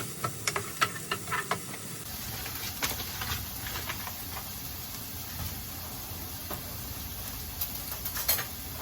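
Leek and onion sizzling in melted butter in a pan, with a quick run of clicks from stirring against the pan in the first two seconds and a few knocks near the end.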